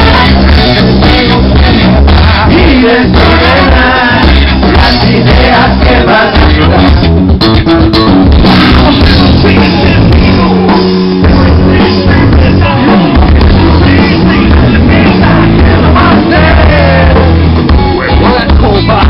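Live rock band playing loudly over an outdoor PA during a soundcheck: sung vocals over electric guitar, bass and drum kit, with a heavy steady bass line.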